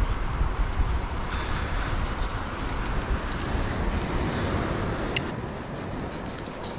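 Wind buffeting the microphone with a low rumble, over the wash of sea surf on the rocks; a single sharp click about five seconds in.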